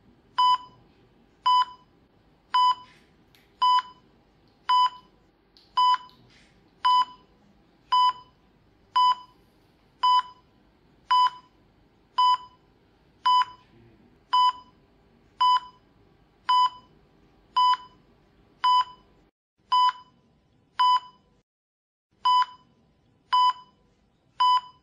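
Patient monitor beeping steadily, one short high beep about once a second, over a faint low room hum that drops out near the end.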